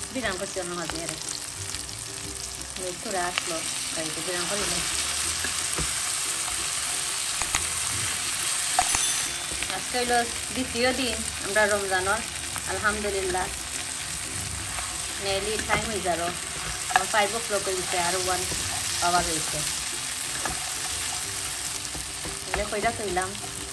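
Meat and onions sizzling as they fry in a non-stick wok, with a steady hiss, while a plastic spatula stirs and scrapes the food around the pan at intervals.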